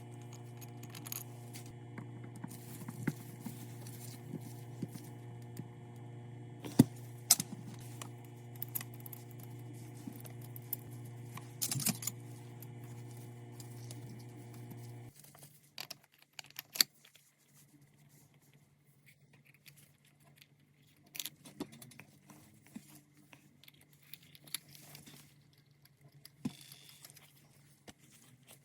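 Small metal parts clinking and tapping as they are handled, over a steady machine hum that cuts off suddenly about halfway through; after that only scattered light clicks remain.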